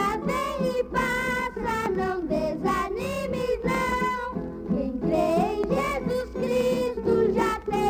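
A children's vocal group singing a hymn with plucked-string accompaniment.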